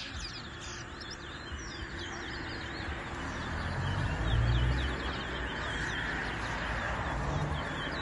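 Caged towa-towa (chestnut-bellied seed finch) song in a bird race: many quick, high, falling chirp notes in fast runs. A low rumbling noise underneath grows loudest about halfway through.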